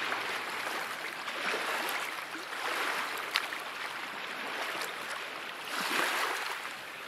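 Small waves lapping and washing at the water's edge, a steady wash of water that swells briefly about six seconds in, with a single sharp click about three and a half seconds in.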